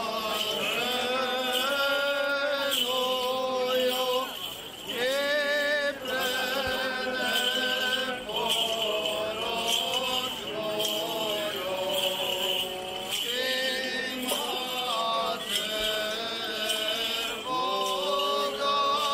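Voices chanting an Orthodox church hymn, a slow melodic line with long held notes.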